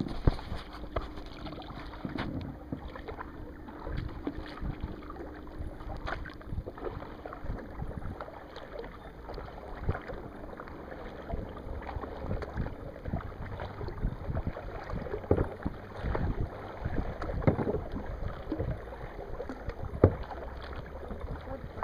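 Kayak paddling: paddle blades dipping and splashing in the water at an uneven pace, with scattered knocks, the loudest three in the second half.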